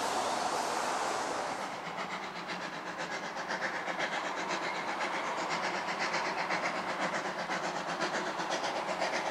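A steam locomotive working towards the listener, its exhaust beating in a quick, even rhythm over a steady hiss. It is preceded, for the first second and a half or so, by a broad rushing noise.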